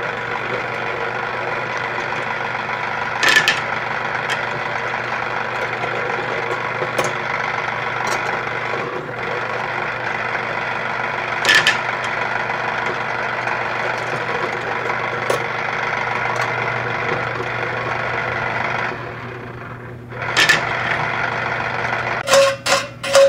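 American Flyer oil drum loader accessory running, its motorised forklift mechanism making a steady buzz with an occasional sharp click. The buzz stops about 19 seconds in, followed by a few clicks.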